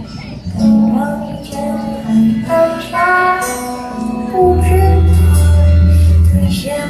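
A song performance: a singing voice carries the melody over instrumental accompaniment. About four and a half seconds in, a loud low bass note comes in and is held for about two seconds.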